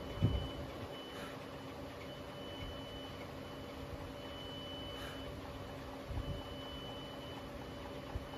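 Double-turret CNC lathe running with its spindle turning: a steady machine hum with a faint high whine that comes and goes, and two low knocks, one just after the start and one around six seconds in.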